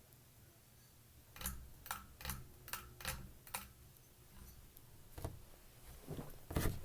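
A quick run of six sharp clicks in about two seconds, then a single click, then a louder cluster of clicks near the end, over a faint steady low hum.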